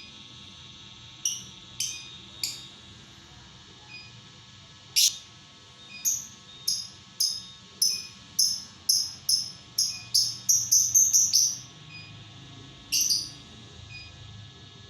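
Lovebird giving short, sharp, high-pitched chirps: a few spaced calls, then a quickening run of them about ten seconds in, and one more near the end.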